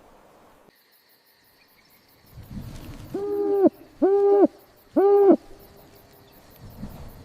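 An owl hooting three times, about a second apart, each hoot about half a second long and held at one steady low pitch. Faint fast insect chirping runs underneath.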